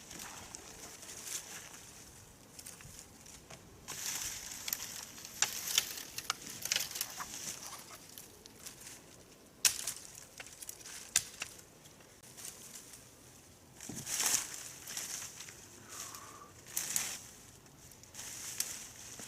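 Irregular rustling and crackling in short bursts, with several sharp snaps or clicks scattered through, the loudest about ten seconds in.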